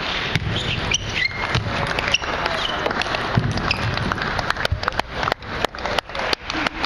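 Table tennis rally: the ball clicking off bats and table about twice a second, with a few short squeaks of shoes on the court floor. From about four and a half seconds in, quicker, irregular ball clicks follow as the point ends, over the steady murmur of a large hall.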